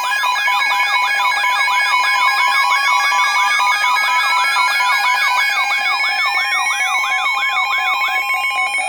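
Several electronic emergency alert tones sounding at once. A fast warbling, siren-like tone swoops about three to four times a second, over steady pulsing beeps, while another tone slowly rises in pitch. The warble stops near the end.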